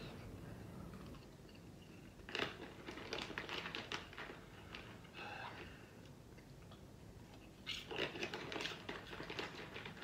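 Crisp crunching and crackling of kettle corn popcorn being handled and chewed, in two clusters of sharp crackles, about two seconds in and again about eight seconds in.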